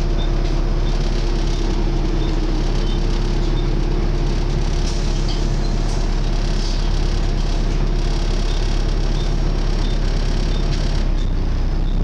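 Volvo B7TL double-decker bus heard from its passenger saloon, the engine running under a loud, steady, vacuum-cleaner-like whine from its cooling fan, the 'mad hoover'.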